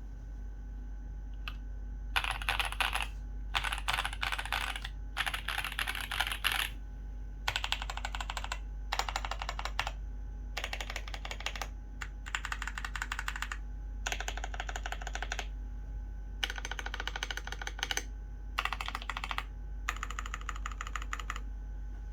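Typing on a custom KBDfans Maja x Vulcan ergonomic mechanical keyboard with a brass plate, foam-dampened case and lubed, filmed Gazzew Boba U4T tactile switches under PBT keycaps, giving a deep "thock". The keys go in short spells of fast typing, about ten of them, each a second or two long with brief pauses between.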